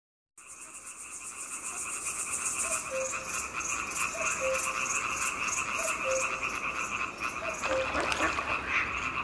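Wetland ambience: a dense steady chorus of frogs and insects fading in, with a short two-tone call repeating about every one and a half seconds. Scattered sharper calls join near the end.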